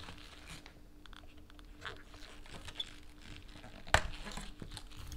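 Small screwdrivers prying plastic mounting clips off a car stereo's metal chassis: faint scraping and light plastic clicks, with one sharp click about four seconds in.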